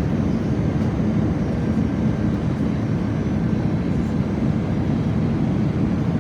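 Airbus A320 cabin noise in flight: a steady, low rumble of engines and airflow heard from inside the cabin.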